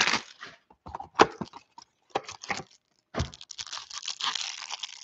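Plastic wrap on a Panini Prizm football card box being crinkled and torn open by hand. Scattered crackles at first, then about three seconds in a continuous tearing and crinkling.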